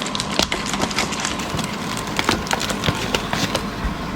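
Plastic bag of fish food crackling and crinkling as it is worked open by hand: a dense run of irregular small crackles, over a steady hum.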